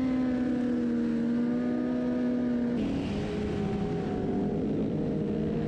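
Motorcycle engines running at steady revs, the main engine note holding for nearly three seconds, then breaking off and shifting to lower, changing tones as the throttle changes.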